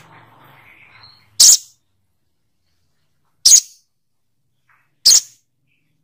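Olive-backed sunbird (sogok ontong) giving three sharp, high single calls, each very short and about two seconds apart.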